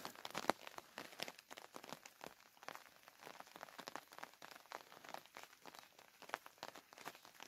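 Faint raindrops pattering: a dense run of irregular small ticks, with no steady hiss behind them.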